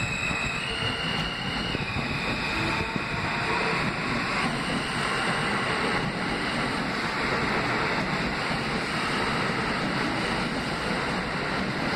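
R160B subway train with Alstom propulsion accelerating out of the station past the platform. Its traction motors give a stepped whine for the first couple of seconds, which gives way to a steady rush of wheels on rail as the cars speed by.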